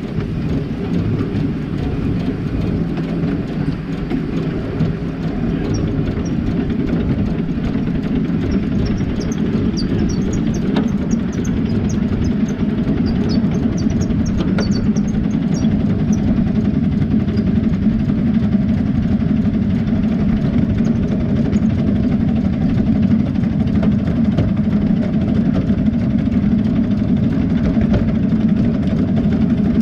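A 7¼-inch gauge live-steam miniature locomotive running along its track, heard from the footplate: a loud, steady rumbling ride. There are a few sharp clicks near the middle and faint high squeaks for several seconds.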